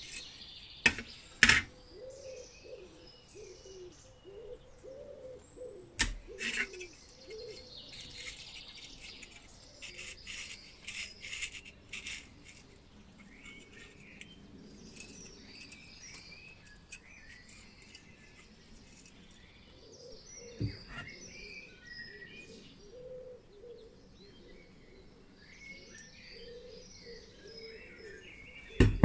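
Birds chirping and singing in the background, with a few sharp knocks from metal stove parts being handled, the loudest about a second and a half in, at about six seconds, and right at the end.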